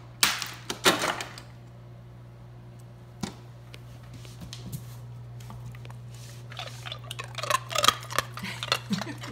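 A few sharp clatters in the first second or so, then, from about two-thirds of the way in, a Doberman puppy crunching ice cubes: a quick, irregular run of crisp cracks. A low, steady hum lies under it all.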